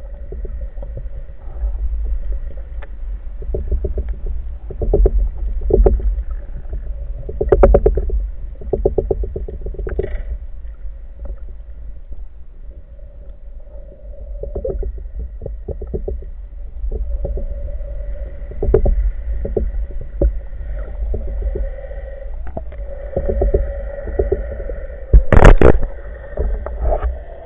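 Underwater sound picked up through a camera housing: a steady low water rumble with repeated bursts of fast, fine clicking, and one loud, sharp burst near the end.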